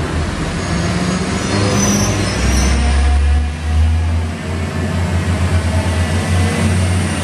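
Stadler GTW (ATR 126) diesel multiple unit pulling out of the station, its diesel engine running under load with a deep hum that throbs in pulses from about halfway through. A brief high squeal is heard about two seconds in.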